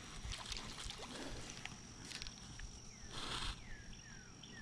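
Pond-side summer ambience: a steady high insect drone, with a bird giving short falling chirps several times in the second half. A brief rustle of handling, about three seconds in, is the loudest sound.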